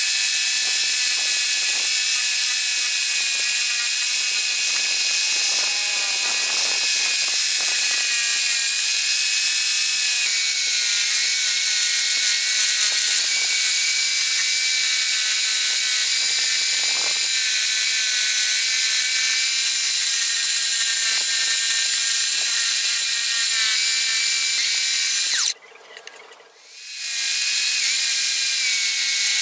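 Homemade scroll saw running and cutting wood, a steady mechanical sound with a high-pitched whine. It cuts out for about a second near the end, then resumes.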